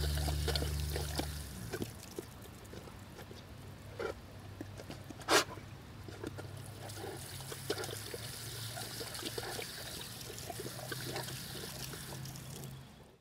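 Water hissing from a garden hose spray nozzle while a large black dog drinks and snaps at the spray, with small wet lapping and splashing ticks. There is one loud, short sharp sound about five seconds in. Background music stops about a second and a half in.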